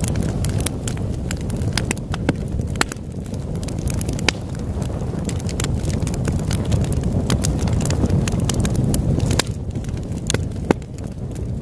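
Wood fire crackling, with frequent sharp irregular pops over a low, steady rumble.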